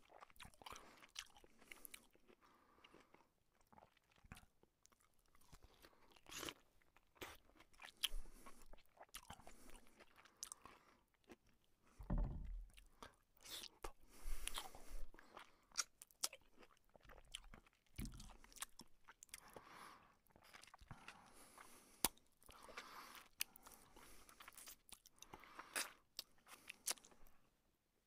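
Close-up eating sounds of a man chewing and biting chicken curry and luchi by hand, with many short, sharp mouth clicks. Two low thumps come near the middle.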